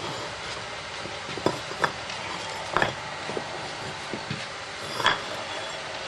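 Paving bricks clinking and knocking against each other as they are lifted from a stack and set in place by hand. A few sharp, short clinks are spread through the clip, the loudest about five seconds in.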